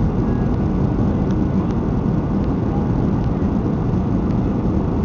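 Steady rumble of a Boeing 737-500's CFM56 engines and rushing airflow, heard from inside the passenger cabin as the jet descends on approach with its flaps extended.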